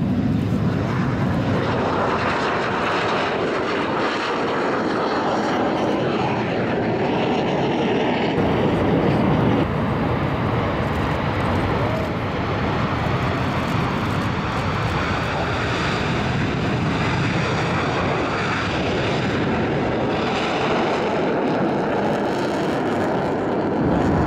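Military jet aircraft, a Kawasaki T-4 jet trainer and fighter jets among them, taking off and flying low along the runway, giving a loud, steady jet noise. The sound changes abruptly about eight and ten seconds in.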